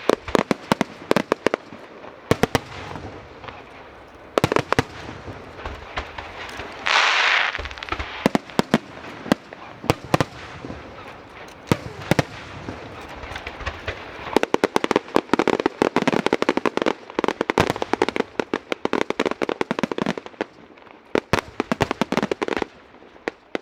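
Fireworks display: a string of sharp bangs and crackling pops from bursting shells, with a loud hissing burst about seven seconds in and a dense stretch of crackling through the second half.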